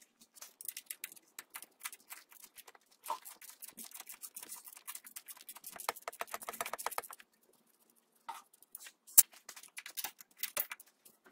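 A socket wrench and hand tools working a rusted nut on a power-steering pipe bracket: rapid scratchy clicking, with a quick even run of clicks partway through and one sharp click near the end as the nut works loose.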